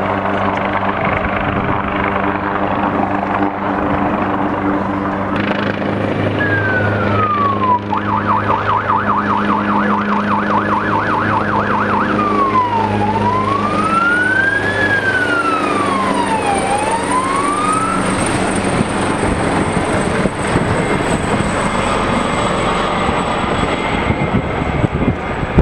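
Rescue helicopter flying low overhead, its rotor running steadily. About six seconds in, a siren starts over it: one falling wail, a few seconds of rapid yelp, then slow rising and falling wails, stopping about eighteen seconds in.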